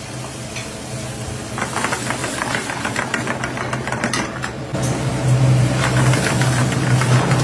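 Steel spoon stirring spinach purée and paneer in a steel pan, with repeated metal-on-metal scrapes starting about a second and a half in. Under it a steady low machine hum gets louder about halfway through.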